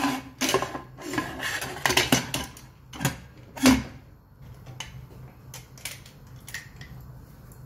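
Metal pressure cooker lid clanking and clicking as it is fitted and locked onto the cooker. A run of sharp knocks comes in the first few seconds, then a few lighter clicks.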